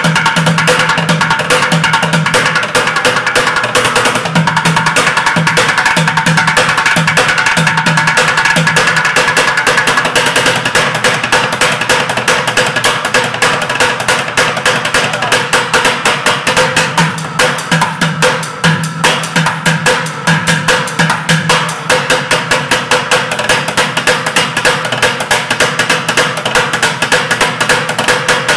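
Bucket drumming: upturned plastic buckets struck with wooden drumsticks in fast, continuous rhythms and rolls.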